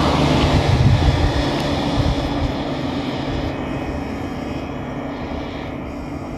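A steady engine drone with a held low hum, slowly fading away.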